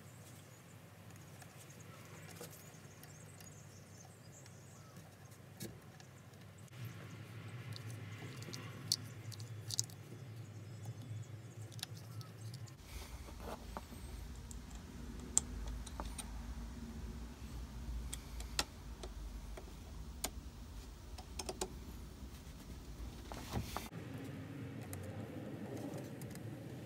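Small metal parts clicking and tapping as a model live-steam locomotive's coupling rods, crosshead and screws are fitted by hand. Scattered sharp ticks come over a low background, with a steady low rumble through the middle part.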